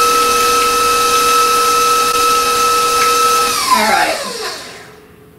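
Electric stand mixer running steadily with a whine as its beater mixes cream cheese filling in a stainless steel bowl, then switched off about three and a half seconds in, the whine falling in pitch and dying away as the motor winds down.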